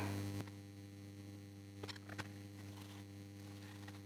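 Faint, steady electrical mains hum with a stack of even overtones, and a few faint clicks about two seconds in.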